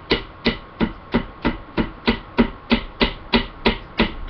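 Steady, even knocking, about three strikes a second, as the handle of a knife lodged in a pumpkin is struck with another hand tool to drive the blade in.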